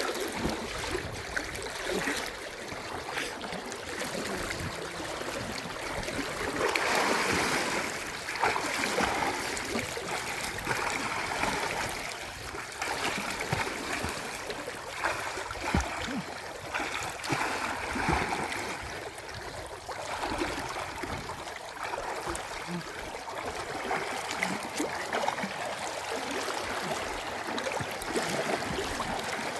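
Flowing stream or river water, a steady rushing and gurgling with a few small knocks.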